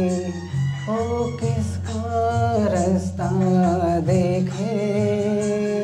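A man singing into a handheld microphone, holding long notes that slide between pitches, over a low, steady accompaniment that changes chord every second or so.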